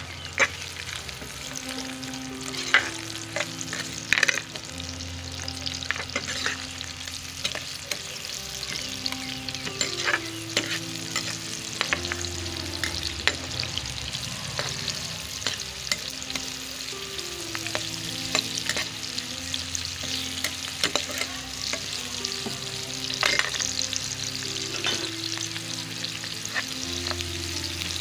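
Sliced onions sizzling as they fry in hot oil in a nonstick wok, stirred with a metal spatula that scrapes and clicks against the pan. The sharpest clicks come in the first few seconds.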